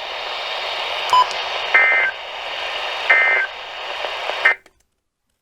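Emergency Alert System end-of-message: three short two-tone digital data bursts, about 1.3 s apart, over a steady radio static hiss, with a short beep about a second in. The hiss cuts off suddenly just after the third burst.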